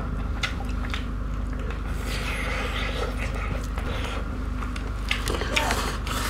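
Close-miked eating sounds: chewing and mouth smacks with small clicks as rice and curry are mixed and eaten by hand. A few sharper clicks come near the end, over a steady low hum.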